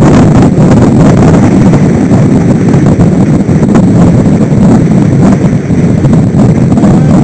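Wind buffeting the microphone of a camera on a sailing dinghy under way: a loud, steady low rumble.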